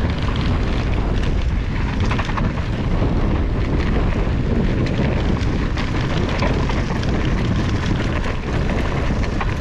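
Wind buffeting an action camera's microphone while a Commencal Meta HT hardtail mountain bike rides over rough trail, with frequent small clicks and rattles from the bike throughout.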